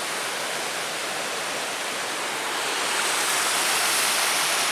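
Small creek waterfall: falling water rushing steadily, getting louder about three seconds in.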